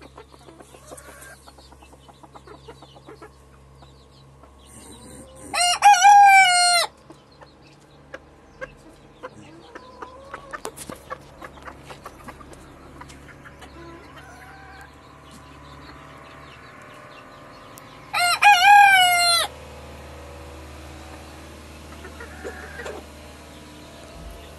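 Ko Shamo rooster crowing twice, about twelve seconds apart; each is a short crow of a little over a second with a wavering pitch. Soft clucks and small clicks come between the crows.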